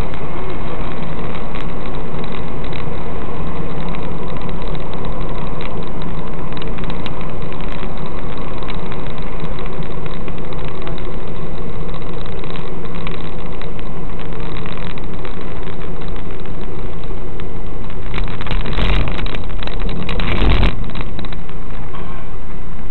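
A car engine running steadily, heard from inside the cabin through a dash cam's microphone. Two short bursts of noise come near the end, a second or so apart.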